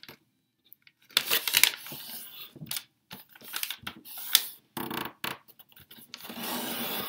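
A sheet of origami paper being folded in half diagonally by hand: crisp rustles and scrapes as it slides on a wooden tabletop and the crease is pressed flat, starting about a second in after a brief silence.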